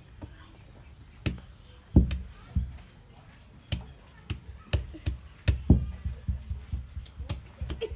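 Hands clapping and slapping as an ape copies a man: sharp smacks, a few spread out at first, then coming about three a second from around four seconds in.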